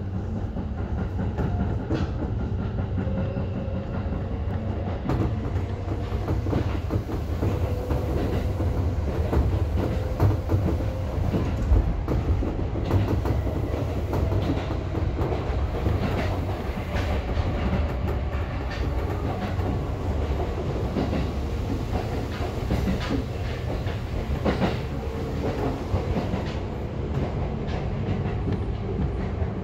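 Seibu Tamako Line electric commuter train running along the track, heard from inside the front car: a steady rumble with irregular clicks and knocks as the wheels pass over the rails, a few louder ones about a third of the way through.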